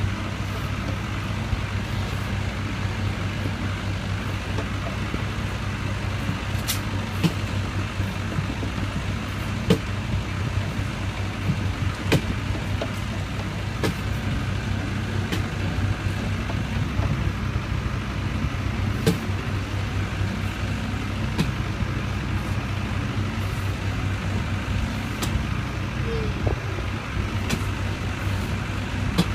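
Fairground kiddie ride running: a steady low motor hum with a sharp click every two or three seconds.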